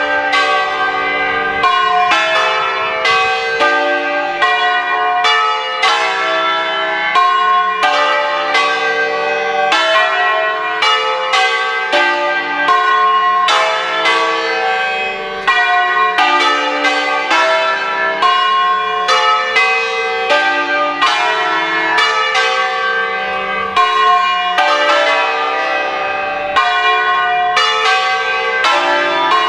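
A ring of five Ambrosian-system church bells in D-sharp, cast by A. Bianchi, rung full circle (a distesa) on their wheels. The strikes come a few a second in a continuous, overlapping peal.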